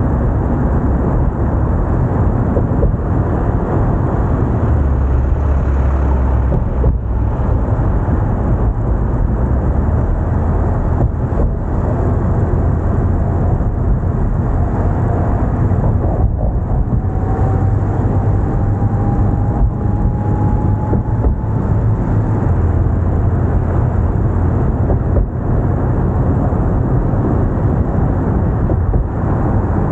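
Car driving along a bridge roadway: steady, loud rumble of road and wind noise, with a faint rising whine from about halfway to two-thirds of the way through.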